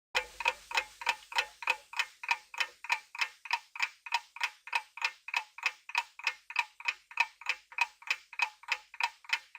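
Clock ticking sound effect, steady at about three ticks a second, typical of a quiz countdown timer.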